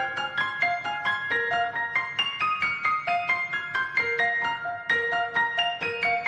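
Background music: a light piano or keyboard tune of quick, evenly spaced notes.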